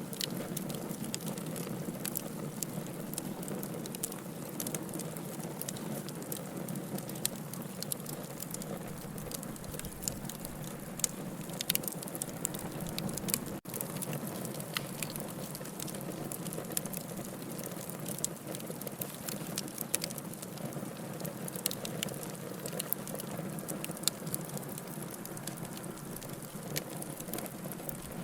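Wood fire in a fireplace crackling steadily, with frequent sharp pops over a constant hiss. The sound drops out for a split second about halfway through.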